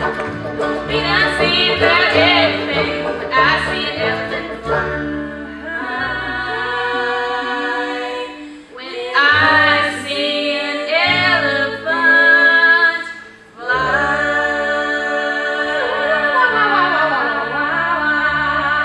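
All-female string band singing the close of a song in held close harmony over mandolin, guitar, banjo and upright bass. The voices break off twice on long sustained chords and slide down in pitch near the end.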